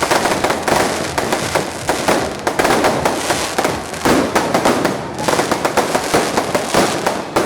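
Fireworks going off in a dense, unbroken run of rapid crackling bangs.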